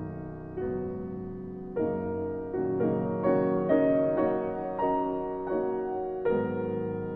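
Piano music playing a slow line of notes and chords, a new note or chord struck about every half second to second.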